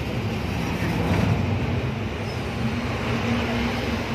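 Passenger train running at speed, heard from inside a carriage: a steady low rumble of wheels and running gear on the rails.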